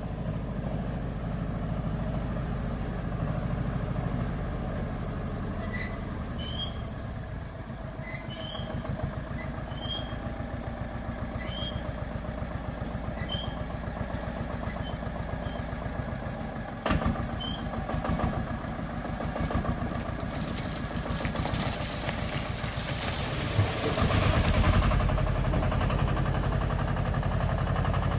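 Diesel engine of heavy earthmoving machinery running steadily, with a single sharp knock about seventeen seconds in and the engine louder near the end.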